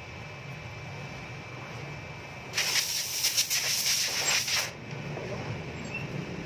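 A loud hiss, fluttering slightly, lasting about two seconds and starting about two and a half seconds in, over a low background hum.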